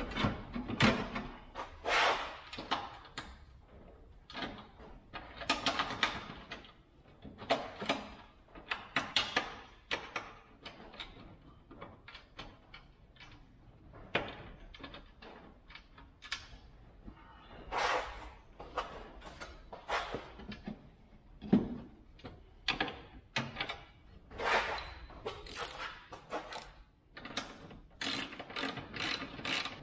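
Hand-tool work on the car's metal radiator support: irregular clinks, knocks and scrapes of fasteners and brackets being handled and fitted, then near the end the fast, even clicking of a ratchet wrench turning a bolt.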